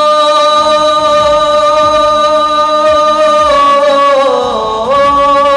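A boy singing a ghazal into a microphone, drawing out one long sung note. The pitch holds steady, sinks about four seconds in, then slides back up near the end.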